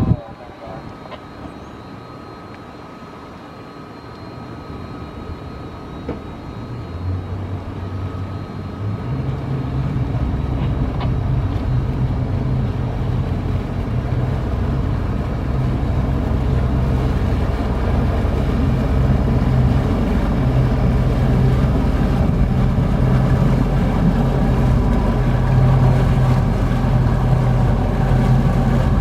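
Yamaha outboard engines on a Sea Fox center-console boat running at low speed while the boat turns in place on joystick control: a steady low drone that grows louder from about four seconds in and holds level from about ten seconds.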